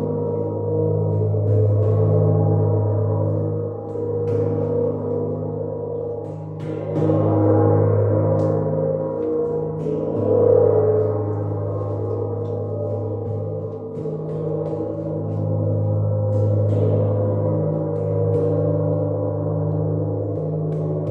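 Gong played as a continuous wash: a deep steady hum under shimmering, swelling overtones, with many light strikes along the way.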